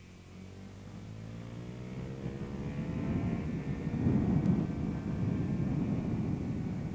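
Motorcycle engine accelerating out of a corner, its pitch rising steadily. From about three seconds in, wind rushing over the on-board camera microphone grows louder and covers much of the engine as speed builds.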